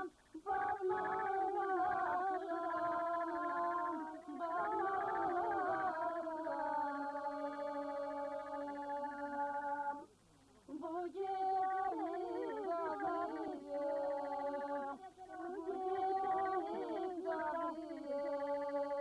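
Women's voices singing a Turkish folk song in long phrases with held, wavering notes, with a brief pause about ten seconds in. It is a bride-weeping (gelin ağlatma) song sung over the veiled bride at a henna night.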